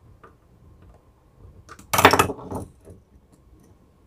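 A few light clicks, then a short, loud metallic clatter about two seconds in, from a small hand tool and switch hardware being handled on the work table during wiring.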